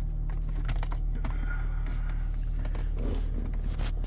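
Scattered light plastic clicks and taps as the climate control panel and dashboard trim of a Toyota Corolla are handled and worked loose, over the steady low hum of the idling engine.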